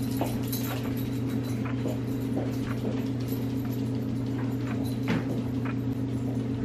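Small dog moving about on a hardwood floor, its claws clicking and tapping irregularly, over a steady low hum.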